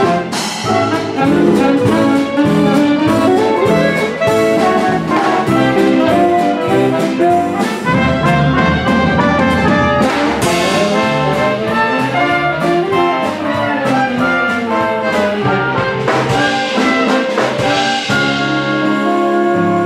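Theatre pit big band playing brassy swing: trumpets, trombone and saxophones over double bass and drum kit. Cymbal crashes come in about halfway through and again near the end.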